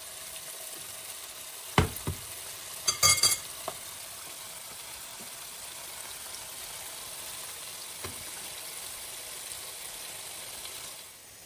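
Flour-coated chopped onion frying in deep oil in a pan: a steady, dense sizzle. A few sharp clicks and knocks come about two seconds in and again around three seconds in, and the sizzle drops lower near the end.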